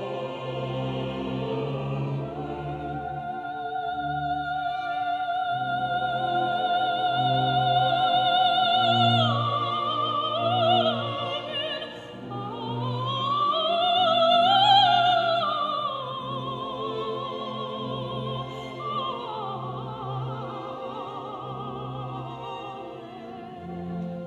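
Background classical music: an operatic singing voice with wide vibrato over orchestral accompaniment. It holds long notes, then a phrase climbs to a loud high peak about fifteen seconds in and falls back.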